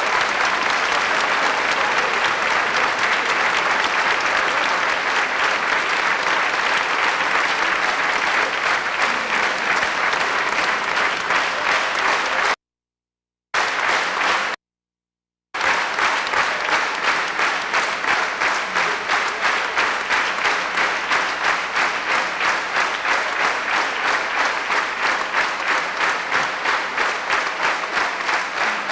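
A large theatre audience applauding loudly and at length, the clapping falling into an even, rhythmic beat in the second half. The sound cuts out completely twice, for about a second each time, a little before halfway.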